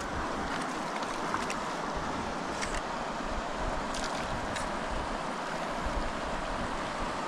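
Shallow creek water running steadily over riffles close to the microphone, with wind buffeting the microphone in low gusts.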